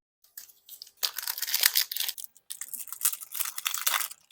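Foil trading-card pack wrapper being torn open and crinkled, in two stretches of crackling about a second long each.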